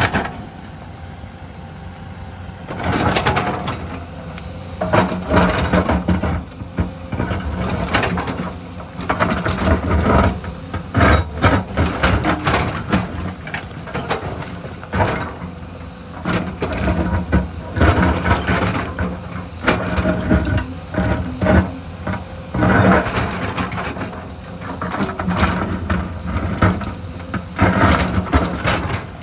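Hyundai crawler excavator's diesel engine running under load as the bucket digs and scrapes into rocky soil, with rocks clattering and knocking against the steel bucket in repeated bursts.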